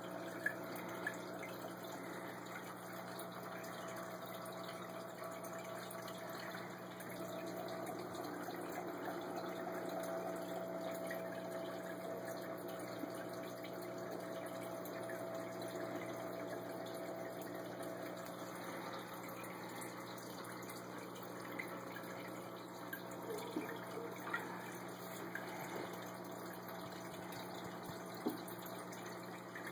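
Aquarium air bubbler running: water bubbling and trickling steadily over a low, even hum, with a few faint clicks in the second half.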